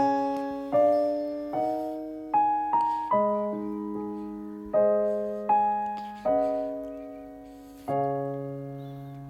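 Slow, gentle piano music: single notes and chords struck about once a second, each left to ring and fade.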